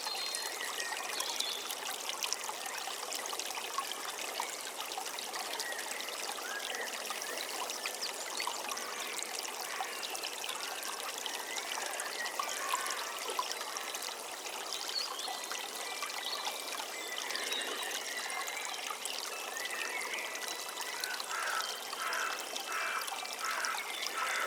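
A river or stream running over stones, a steady trickling and rushing flow, with a few short chirps over it near the end.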